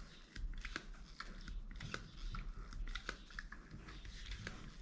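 Faint, irregular small clicks and scrapes of plastic parts as the cup is screwed onto a Wacaco Nanopress portable espresso maker.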